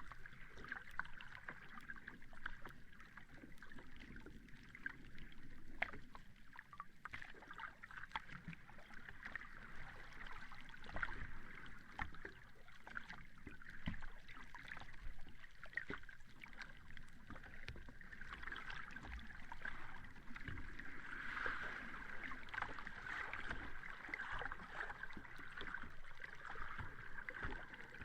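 Sea water washing on a beach: a steady wash with many small crackles and gentle swells in level.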